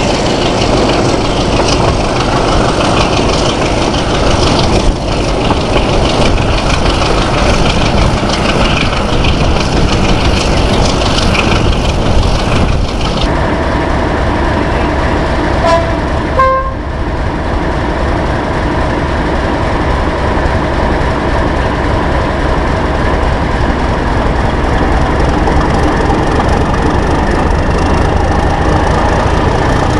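Heavy diesel locomotive engine working hard, heard from an open carriage window on the move, with wheel and rail noise. About 13 s in it changes to diesel locomotive engines running steadily at low power as the locomotives creep past. A short two-note horn sounds a few seconds after that change.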